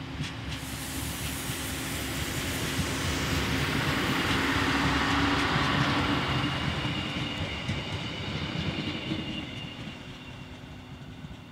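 Class 628 diesel multiple unit passing by. Its engine and wheels on the rails grow louder to a peak about halfway through, then fade away.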